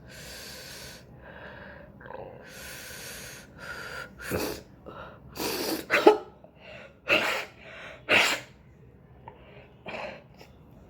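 A person sneezing repeatedly, set off by tickling the inside of the nose with a cotton swab. Two longer breathy sounds come first, then a run of about five sharp sneezes, the loudest about halfway through.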